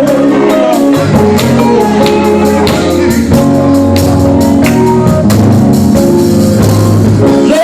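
Gospel band playing an instrumental stretch with a steady percussive beat over held bass notes.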